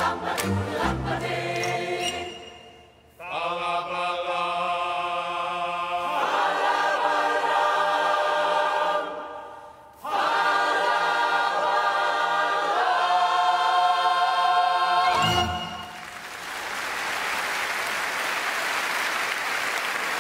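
Large mixed choir singing in rhythmic phrases, then long held chords broken by short breaths. The song ends about sixteen seconds in and the audience applauds.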